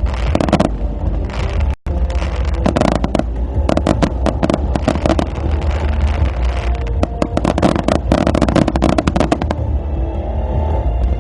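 Fireworks finale barrage: a rapid, dense run of shell bursts and crackles over a continuous deep rumble, with a brief drop-out about two seconds in.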